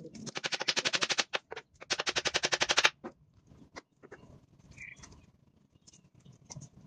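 Hammer driving nails into the wooden frame of a chicken coop: two runs of very rapid, evenly spaced strikes about a second each, with a few single knocks between and after them.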